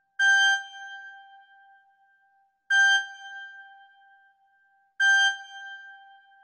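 A single high note played three times on a keyboard, about two and a half seconds apart, each one starting sharply and fading away over about two seconds.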